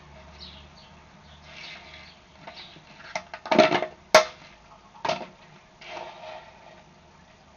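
Clicks and knocks picked up underwater. A quick run of loud clicks comes about three seconds in, followed by single sharp clicks about a second apart, with fainter ticks scattered around them.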